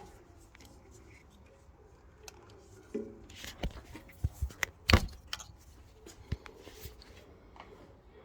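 Irregular clicks, knocks and light rattling of small hard objects being handled, the loudest knock about five seconds in.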